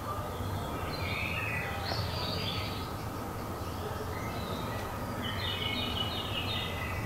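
Small birds chirping in short phrases of quick notes, about three times, over steady background noise.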